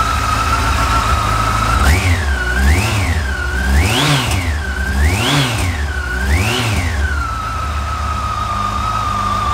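2003 Yamaha FJR1300's 1300cc inline-four engine idling, then blipped on the throttle five times, each rev rising and falling back, before settling to a steady idle. It sounds nice and solid, sweet as a nut: a healthy engine.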